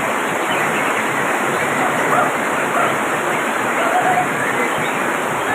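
Heavy rain pouring down steadily, a dense unbroken hiss of downpour.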